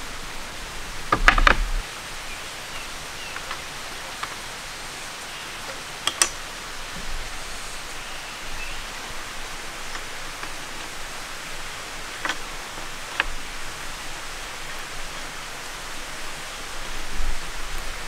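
Wooden camp table parts knocking and clacking as the table is put together: a loud cluster of knocks about a second in, then single lighter clacks every few seconds and another cluster near the end, over a steady outdoor hiss.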